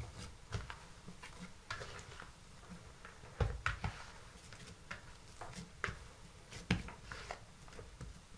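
Oiled hands punching down risen yeast dough in a plastic bowl: irregular soft squelches and thumps as the dough is pressed and slapped against the bowl, a few firmer thumps about halfway through and again near seven seconds in.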